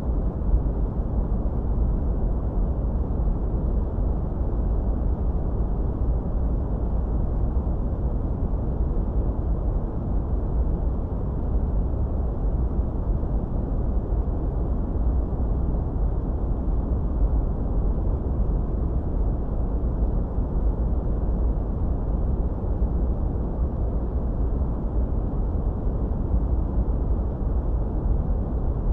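Steady, unbroken noise track: a deep, even rushing with most of its weight in the low end and almost nothing in the highs, darker than true white noise.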